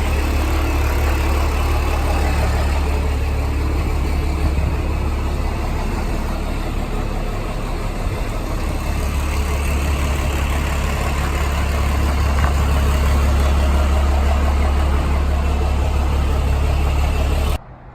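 An engine running steadily at idle, a constant low hum under a steady hiss, cutting off abruptly near the end.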